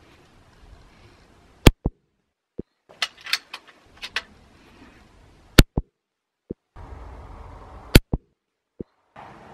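Beeman QB Chief .22 PCP air rifle fired three times, each shot a sharp crack followed a moment later by a fainter click. Between the first two shots comes a run of light metallic clicks as the bolt is worked and a pellet loaded.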